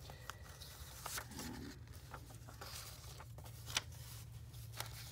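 Paper and card rustling and sliding as journaling cards are drawn out of a paper pocket and the journal's pages are handled, with scattered soft clicks and one sharper tap about three-quarters of the way through, over a steady low hum.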